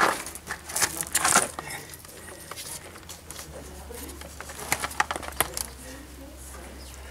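Gloved hands shifting and pressing a doormat well tray with a steel frame into its bed of wet screed, making scraping and clicking noises. One cluster comes near the start and another about five seconds in.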